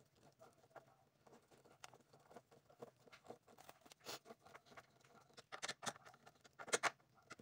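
Faint, scattered light clicks and taps of a door knob lockset's metal parts being handled, with a few sharper clicks near the end.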